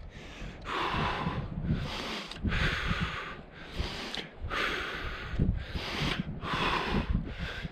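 A man breathing hard and heavily, about one loud breath a second, out of breath from climbing a steep slope under a heavy backpack. A low rumble runs underneath.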